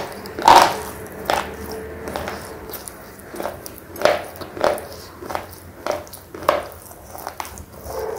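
Thick red slate pencil being chewed close to the microphone: dry, crunchy bites and grinds at an uneven pace, roughly one every half second to a second.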